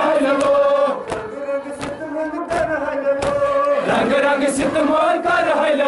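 Men chanting a Kashmiri noha in unison, holding long mournful lines. Sharp slaps, typical of matam chest-beating, come roughly once a second.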